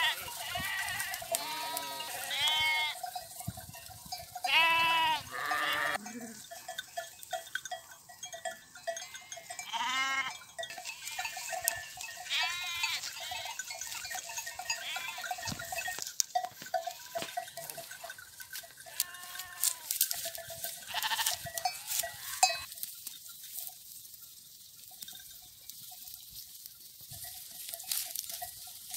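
Flock of sheep bleating, many overlapping calls in the first half and fewer later, with a bell clinking now and then and scattered crisp clicks as they graze close by.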